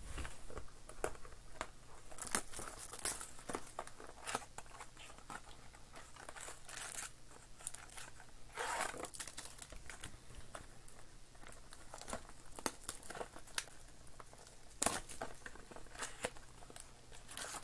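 Trading-card packaging crinkling and cards rustling as a pack is opened and handled: irregular crackles and rustles, with a longer rustle about nine seconds in.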